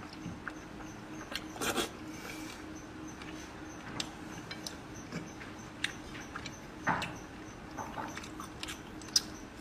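Close-up mouth sounds of chewing soft, fatty red-braised pork belly: wet smacks and lip clicks at irregular moments, a few louder ones about two, seven and nine seconds in.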